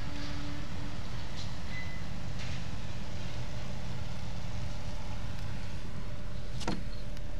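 Moored ferry's engine idling with a steady low rumble, with a faint steady hum above it. A single sharp click sounds near the end.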